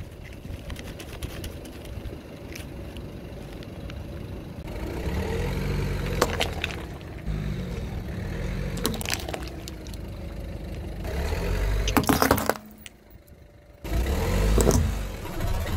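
A car creeping forward with its engine running low as its tyre rolls over plastic toy flowers on asphalt, breaking them with sharp cracks about three seconds apart. Near the end the sound drops out briefly and the engine comes back.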